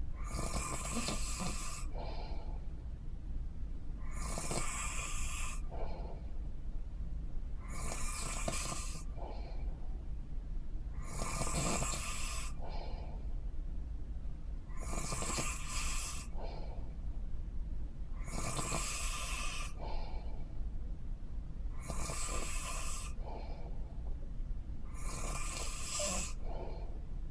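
A person snoring in a steady rhythm, a rasping snore about a second long roughly every three and a half seconds, eight times. A steady low hum runs underneath.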